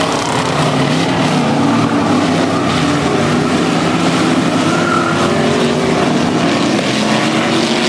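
Several race car engines running together on a dirt speedway, their pitch wavering up and down as the cars speed up and slow, over a steady rumbling wash of engine noise.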